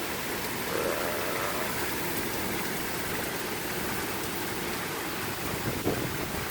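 Heavy rain pouring steadily in a spring storm, with one sharp tap near the end.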